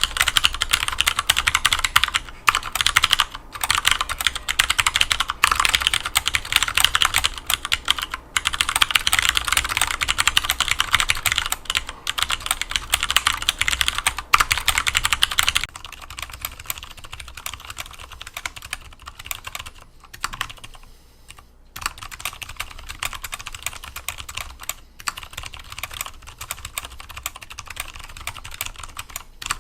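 Fast typing on a Phantom TKL mechanical keyboard with 62g Ergo Clear switches. About halfway through the typing becomes much quieter, the sound of the same keyboard after Zealencio clips are fitted.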